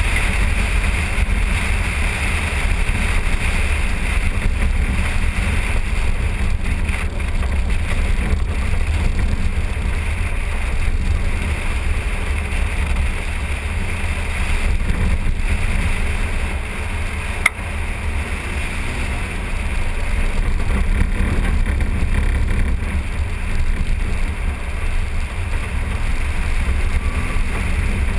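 Wind buffeting an exterior hood-mounted microphone on a moving Jeep, a steady rumble with tyre noise on gravel and engine noise underneath. A single sharp click about two-thirds of the way through.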